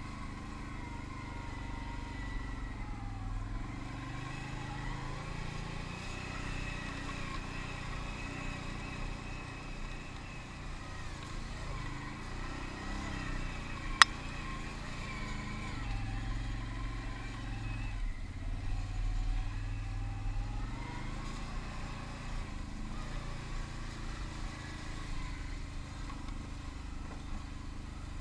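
Can-Am ATV engine running at slow trail speed, its pitch rising and falling with the throttle. A single sharp click about halfway through.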